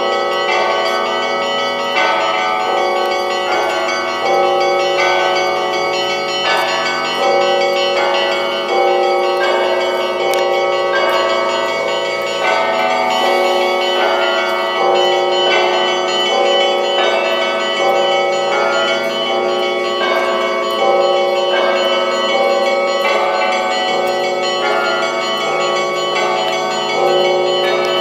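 Russian Orthodox church bells of a monastery belfry, a large bell and a row of smaller bells, rung by hand in a continuous festive peal. Strikes come about every second or two, and many bells sound together, ringing on over one another.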